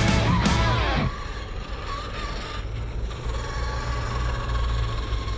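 Music ends about a second in, leaving an electric RC car's motor and gears whining steadily as it runs on a dirt track, over a low rumble.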